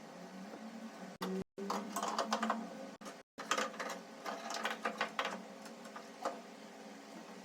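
Irregular clicking and rattling of metal parts being worked by hand, over a steady low hum; the sound drops out completely twice for a moment.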